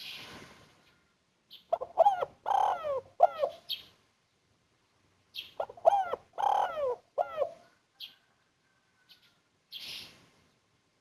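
Spotted dove (tekukur) singing its cooing song twice, each phrase a run of soft descending coos about two seconds long, the 'kuk 1' type prized by dove keepers. Short noisy hissing bursts come at the start and again near the end.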